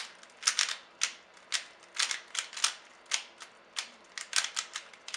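Cyclone Boys 3x3 speed cube being turned quickly by hand in a speedsolve: hard plastic clicking and clacking of the layers, in short uneven bursts about twice a second.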